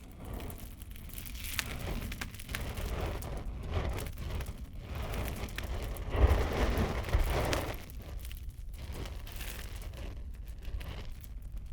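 Fire burning, with many small crackles and pops over a low roar that swells to its loudest about six seconds in.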